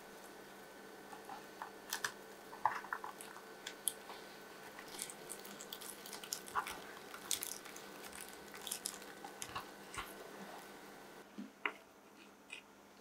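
Close food-preparation handling sounds: irregular small crisp crunches, clicks and soft squishes, as of raw bean sprouts, pea shoots and sliced pork being handled, over a faint steady hum.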